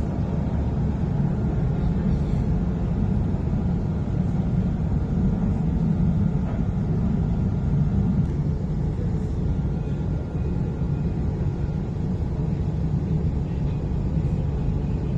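Steady low rumble of a Dubai Tram car running along its track, heard from inside the passenger car, with a faint thin whine coming and going.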